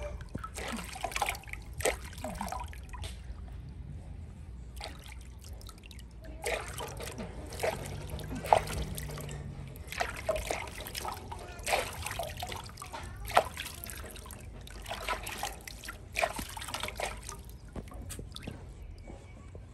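Water splashing and trickling in a large aluminium basin as hands scoop and pour it over a small monkey being bathed, in irregular splashes with a brief lull about four seconds in.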